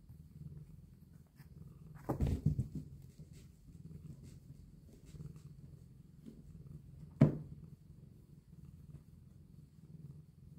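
Black-and-white domestic cat purring steadily and quietly while its cheeks are rubbed. A couple of thumps come about two seconds in, and a sharp knock a little after seven seconds.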